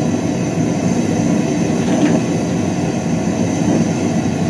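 Homemade propane forge with a propane torch burner running steadily at high heat, a loud, even roar of gas and flame.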